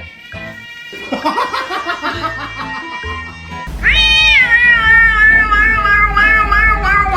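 A cat gives one long, drawn-out yowl that starts about four seconds in and sags slowly in pitch, over background music: the weird sound this cat makes.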